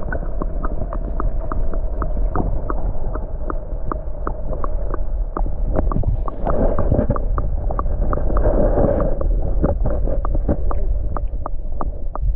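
Small boat under way on a lake: a steady, loud low motor rumble with water noise, and a sharp tick repeating about three times a second.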